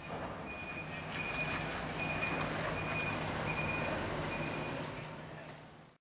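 Heavy dump truck's diesel engine running as it pulls out, with a high electronic warning beep repeating about every 0.8 seconds. The sound fades near the end.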